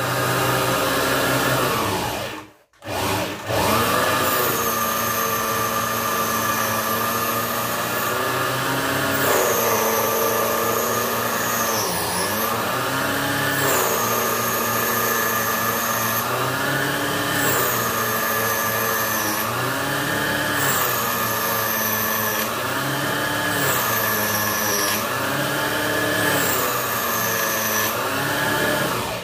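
Homemade mini table saw powered by a sewing-machine motor, running with a steady whine that cuts out briefly about three seconds in. Its pitch dips and recovers again and again as small pieces of wood are fed through the blade and load the motor.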